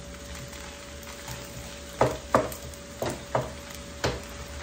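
Wooden spatula stirring fried rice in a frying pan over a gas flame, with a low steady sizzle. In the second half the spatula knocks against the pan five times, about two a second, as the rice is tossed and mixed.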